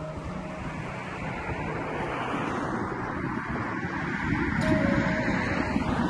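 Wind buffeting the microphone over a steady rushing background, with the low gusts growing stronger and louder in the second half.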